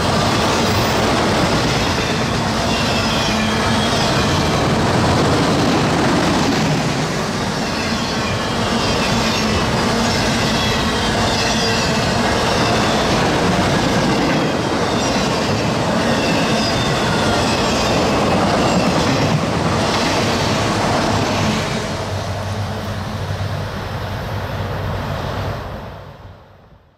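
Freight cars of a mixed freight train rolling past: a steady rumble of wheels on rail with wavering wheel squeal and clickety-clack over rail joints. The noise drops about 21 seconds in and fades out near the end.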